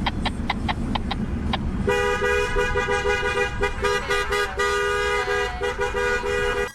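Vehicle horns honking over low road rumble: a quick run of short toots, several a second, then about two seconds in a two-tone horn held on and off until it cuts off suddenly.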